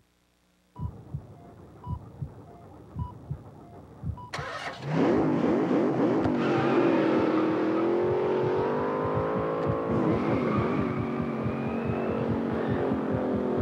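Fetal heartbeat on an ultrasound monitor, a fast regular pulse with small electronic beeps. About four seconds in, a car engine revs up and keeps running at a wavering pitch over the heartbeat, which goes on pulsing beneath it.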